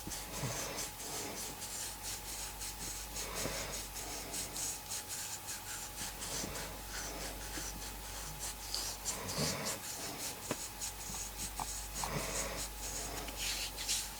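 A person snoring in sleep, one soft breath about every three seconds, over constant faint crackling and a steady hum.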